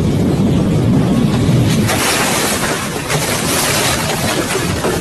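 Wind rumbling on the microphone, then about two seconds in a sudden crash as a pickup truck is smashed apart in a collision: crunching metal and scattering debris for about two seconds.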